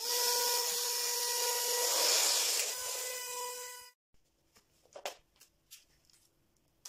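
Small DC hobby motor spinning the propeller of a homemade model plane. It starts abruptly, runs with a steady high hum and hiss for about four seconds, then cuts off. A few faint clicks follow as the wiring is handled.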